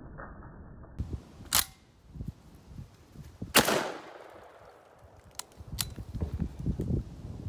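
Citadel Warthog 12-gauge shotgun fired twice about two seconds apart, the second shot the loudest and trailing an echo. Then a few light metallic clicks as the action is worked on a jam, which the shooter blames on cheap low-brass shells getting shoved up into the magazine tube.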